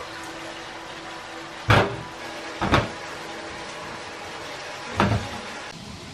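Three loud knocks of kitchenware being handled at a stainless-steel sink, two about a second apart near two seconds in and a third about five seconds in, over a steady hiss of running tap water.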